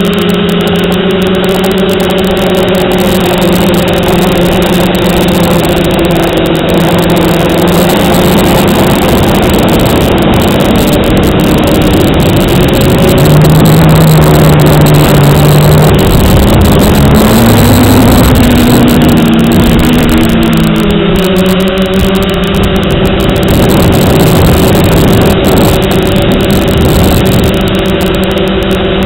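Quadcopter motors and propellers buzzing steadily in flight, heard from on board. About halfway through the pitch drops, then swings up and down for a few seconds before settling back to a steady buzz.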